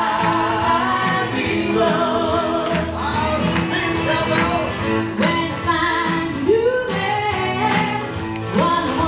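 A song with singing over instrumental backing.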